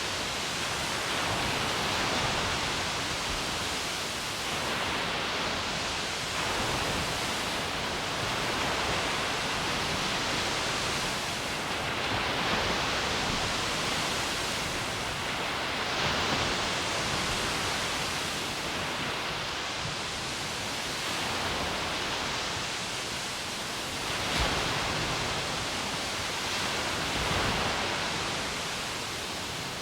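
Ocean surf: a steady hiss of breaking waves that swells and eases every few seconds, with a couple of low thumps near the end.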